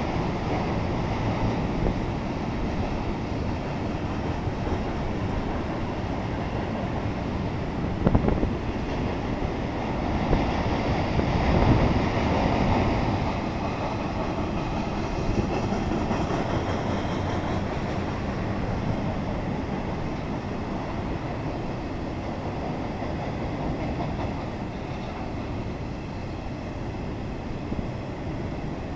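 Freight cars of a CSX intermodal train rolling past, a steady noise of steel wheels on rail. There is a sharp clank about eight seconds in, and the sound grows louder for a few seconds soon after.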